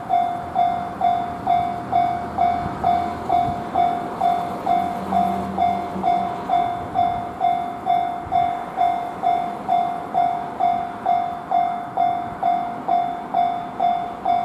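Japanese railway level-crossing warning bell ringing steadily, one clang about every half second, warning that a train is approaching.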